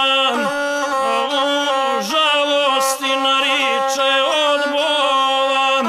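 Gusle, the single-string bowed Balkan folk fiddle, playing an instrumental passage: a held note with quick trills and ornaments above it and brief downward slides.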